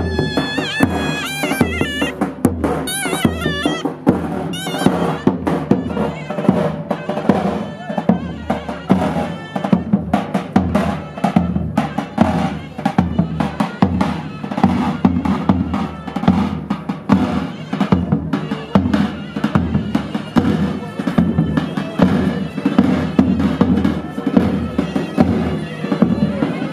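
Kurdish halay dance music: a reedy, zurna-like wind melody over a steady, driving drum beat. The ornamented melody line is clearest in the first few seconds.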